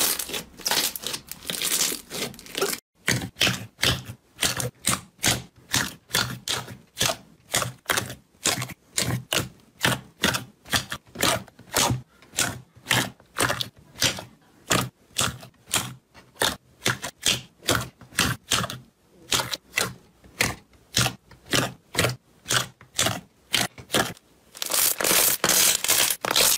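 Hands pressing and kneading thick, glossy slime, giving sharp wet crackles and pops about two a second. The crackling is denser and more continuous at the start and again near the end, with a brief pause about three seconds in.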